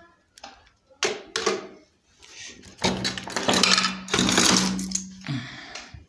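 Hot-air rework station blowing on a laptop motherboard, desoldering a small part near the USB power circuit. Two short blasts come first, then a longer steady rush of air over a low motor hum, which winds down as it stops near the end.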